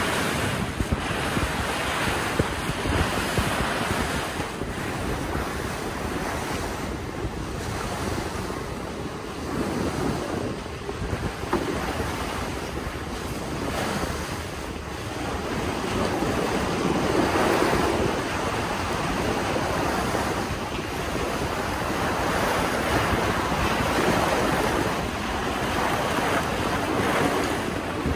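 Wind gusting across the microphone over the rush of water, as heard on board a small passenger ferry: a steady noise that swells and eases in gusts every few seconds.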